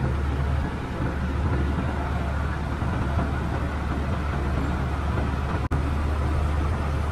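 New Holland 8080 combine harvester's diesel engine running at a steady idle, a low drone, with an instant's break about five and a half seconds in.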